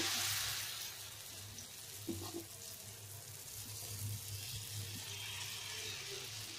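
Adai batter sizzling in hot oil on a dosa griddle as it is ladled and spread, a steady hiss that is loudest at the start, eases after about a second and swells again near the end.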